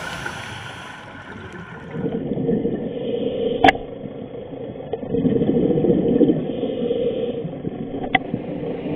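Underwater sound from a dive camera: rushing surges of scuba divers' exhaled bubbles over a steady low hum. Two sharp clicks come through, one just under four seconds in and one near the end.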